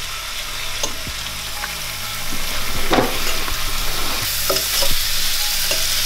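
Oxtail pieces searing in a hot stainless steel skillet, a steady sizzle that grows louder about four seconds in. A fork turning the meat scrapes and clicks against the pan a few times.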